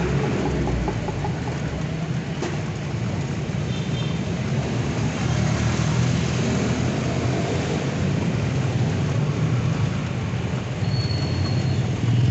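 Street traffic heard from a moving bicycle sidecar: motorcycles and motorcycle tricycles running and passing over a steady low rumble of the ride, with a brief high squeal near the end.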